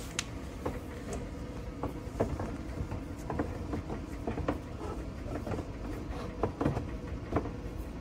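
Plastic LC141 ion exchange cartridge being fitted into an ELGA water purifier's cabinet: scattered light clicks and knocks as it bumps and slides against the housing, over a low steady background hum.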